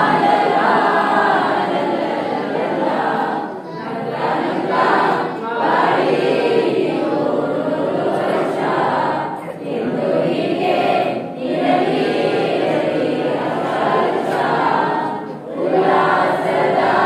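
A group of children and adults singing a prayer together, in phrases of a few seconds with short pauses between them.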